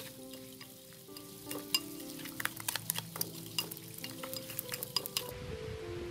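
Wooden chopsticks and a metal spoon clicking and scraping against a ceramic bowl in quick, irregular taps as seasoned raw meat is stirred into its marinade, stopping about five seconds in. Soft background music with sustained notes runs underneath.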